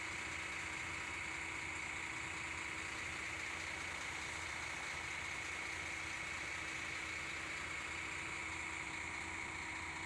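Concrete mixer trucks' diesel engines idling, a steady low rumble with a constant faint whine over it.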